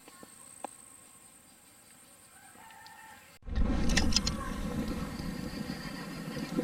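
A rooster crowing in the distance over quiet outdoor ambience with a few faint clicks. About three and a half seconds in, the sound cuts abruptly to a much louder low rumbling noise on the microphone.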